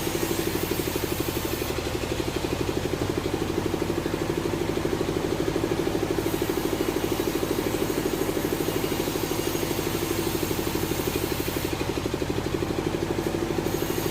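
Sawmill engine running steadily at a constant speed, with a fast, even pulsing beat.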